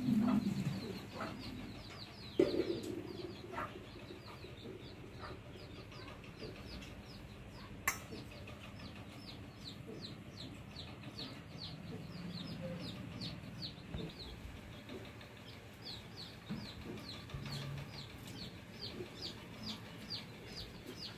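Chickens clucking and chirping: a steady run of short, high, falling chirps, two or three a second. Two soft low thumps come in the first few seconds.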